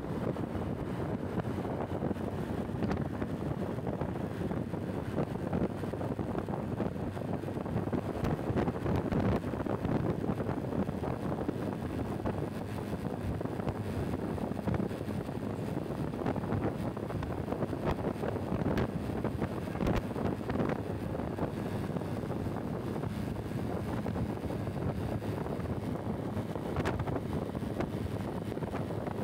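Wind buffeting the microphone of a rider on the move, a steady rumbling rush with road and traffic noise underneath.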